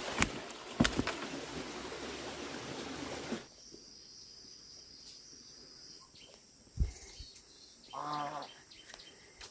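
A steady rushing noise with a few sharp knocks stops suddenly about a third of the way in. Quieter outdoor ambience follows, with a single thump and a short bird call near the end.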